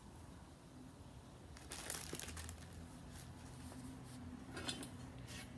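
Faint rustling and handling noises over a low steady hum.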